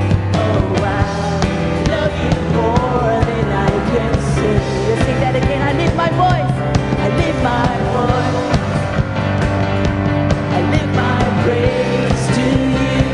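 Live worship band playing a praise song with drums, bass and a sung melody.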